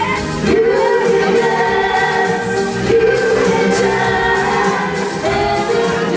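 Live band music: two women singing together into microphones over keyboard backing with a steady beat.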